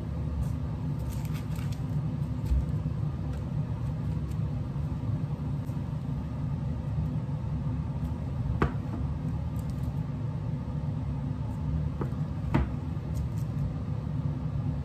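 A kitchen knife slicing a rolled puff-pastry log into pinwheels over a steady low hum, the blade striking the counter through the parchment with two sharp taps, one past the middle and one near the end.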